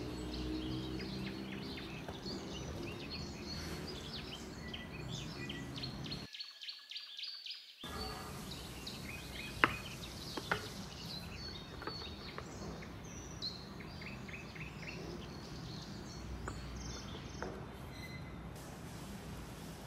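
Small birds chirping in quick short notes over a steady background noise. The background cuts out for about a second and a half about six seconds in, and two sharp clicks come about ten seconds in.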